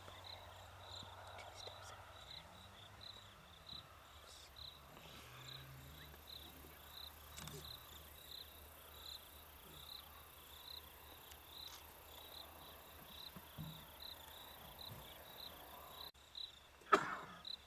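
Crickets chirping at night: a faint, steady, evenly spaced chirp over a low background hum. Near the end comes one sharp knock, the loudest sound.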